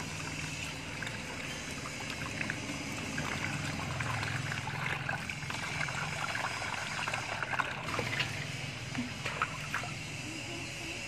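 Hands working shampoo lather into a small dog's soaked fur: soft wet squishing with water trickling and dribbling.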